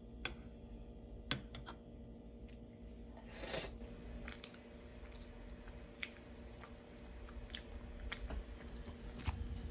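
A person chewing and biting crunchy food close to the microphone: scattered sharp crunches, with a longer crunch about three and a half seconds in.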